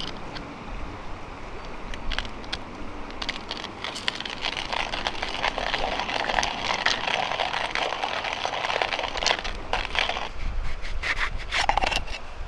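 Stainless steel hand coffee grinder crushing coffee beans: a steady crackling grind that starts a few seconds in and runs for several seconds, then a few clicks and metal scrapes as the grinder is pulled apart near the end.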